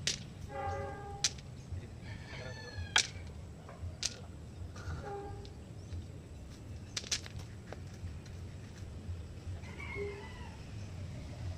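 Chickens clucking in short calls several times, over a steady low rumble. Several sharp knocks a second or more apart, from hand tools working the grave's soil and border, are the loudest sounds.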